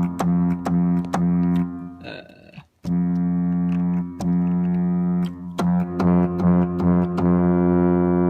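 A synthesized ship's horn, a low two-note chord, played as several short blasts, then one long blast of about three seconds, then more short blasts, with clicks as the notes start and stop. It is tuned to imitate the Carnival Freedom's horn.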